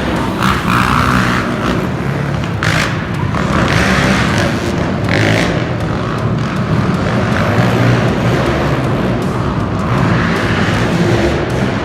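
Monster truck engine running loud, its pitch and level surging up and down repeatedly.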